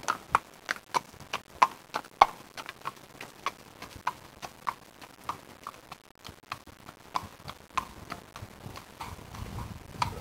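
A horse's shod hooves clip-clopping on a tarmac street at a steady walk, about three strikes a second, as it pulls a cart. A low rumble comes in near the end.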